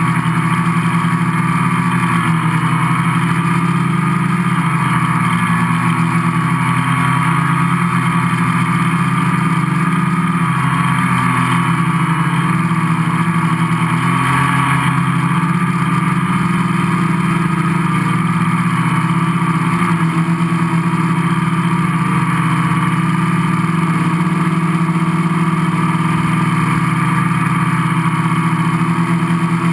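Gaui 500X quadcopter's four brushless motors and propellers running in flight, heard close up from a camera mounted on its frame: a steady low hum with a higher whine that wavers slightly.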